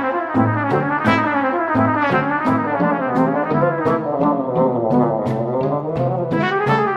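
Background music led by a brass melody, with light percussion ticking at a steady beat.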